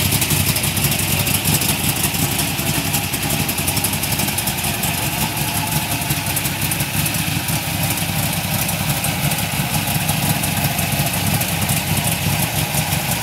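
LS1 5.7-litre V8 swapped into a 1973 Datsun 240Z, idling steadily with a rough, uneven beat.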